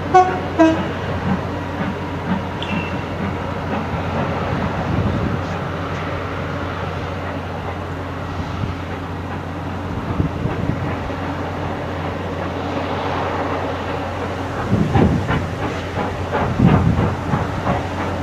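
BR Britannia class 4-6-2 steam locomotive No. 70000, a two-cylinder Pacific, working hard as it pulls away with a heavy 12-coach train, its exhaust beats and hiss coming through steadily and growing louder and sharper in the last few seconds.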